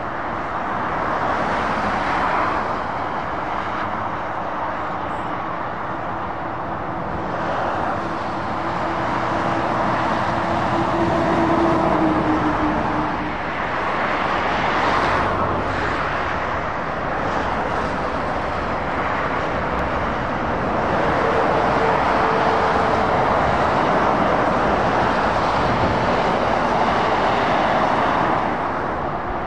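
Road traffic passing: heavy lorries and cars going by with steady tyre noise and diesel engine sound, swelling several times as vehicles pass close.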